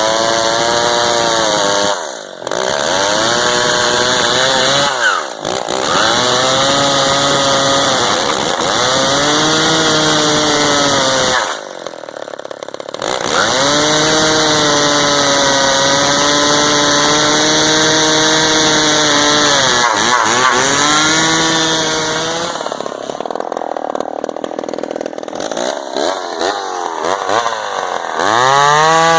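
Gasoline chainsaw running at high revs and cutting wood, its pitch sagging under load and recovering again and again. Its level dips briefly three times, and it runs lower and unevenly for a few seconds near the end.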